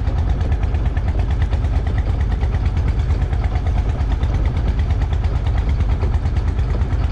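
Engine on a small fishing boat running steadily, a fast even low chugging.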